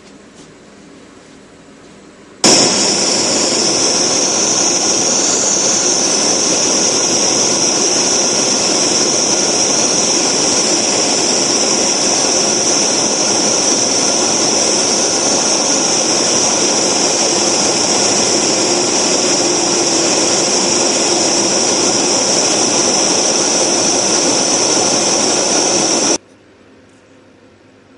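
Handheld jeweller's gas torch on a gas cartridge, starting suddenly about two and a half seconds in and hissing steadily as its flame melts a small lump of precious metal. It cuts off abruptly near the end.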